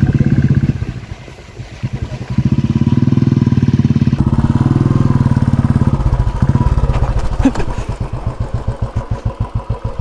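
A motorcycle engine being revved hard as the bike is forced up a muddy off-road slope. The revs hold high for a few seconds, then drop to a slower, pulsing beat near the end.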